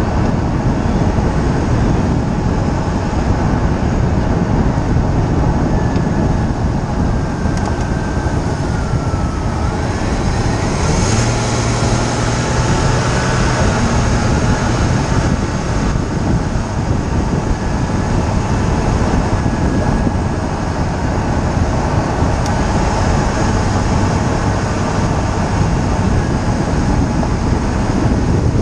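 Steady tyre roar and wind rush from a camera mounted beside the wheel of a moving BMW E46 325xi. A low hum comes in about ten seconds in and fades a few seconds later.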